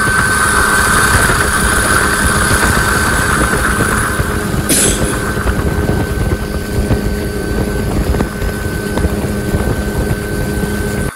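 Helicopter cabin noise: dense low rotor and wind buffeting under a steady high turbine whine, with a brief hiss about five seconds in.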